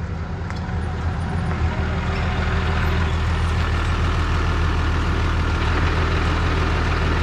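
Turbo-diesel pickup truck running, its engine and road noise heard from inside the cab, growing louder over the first couple of seconds and then holding steady.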